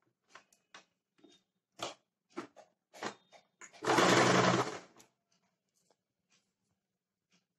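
Small electric sewing machine stitching a seam that joins pieces of sari fabric, running for about a second near the middle and then stopping. Before it come several light clicks and rustles as the fabric is set under the needle.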